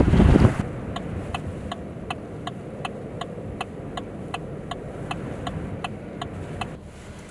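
Loud wind noise on the microphone cuts off abruptly under a second in, then a car's turn-signal indicator ticks steadily, about three ticks a second, over a low engine rumble. The ticking stops shortly before the end.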